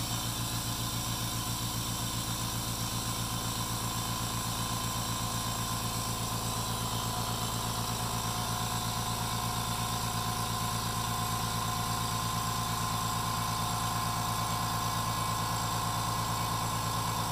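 Fortress Ultra Quiet 2-gallon oil-free air compressor running steadily under load as it pumps up its empty tank, a smooth even hum with a faint whine that creeps slightly higher as the pressure builds.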